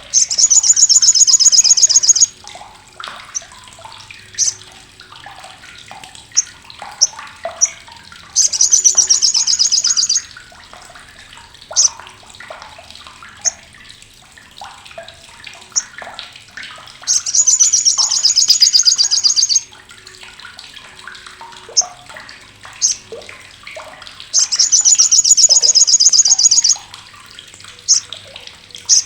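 Sogok ontong sunbird (sriganti) giving its loud, harsh, rasping chatter. There are four bursts of about two seconds each, with short sharp single chip notes in between.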